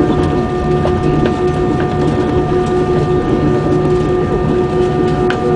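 Airbus A320 jet engines running at taxi power, heard inside the cabin over the wing: a steady hum with a few held tones.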